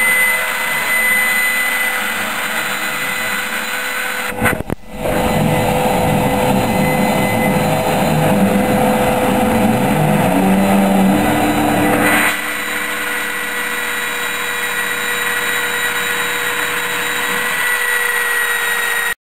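A Diginox Euclides Júnior CNC router running, with a steady high whine throughout. A few seconds in, the sound breaks off briefly. Then comes a louder, noisier stretch of about seven seconds with shifting lower tones as the machine moves and cuts, before it settles back to the steady whine.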